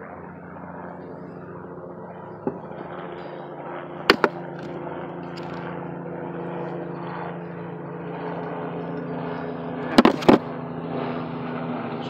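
Honeybees buzzing in a steady hum over the open hive, slowly growing louder. Sharp clicks break in once about two and a half seconds in, twice about four seconds in, and twice more, loudest, near ten seconds.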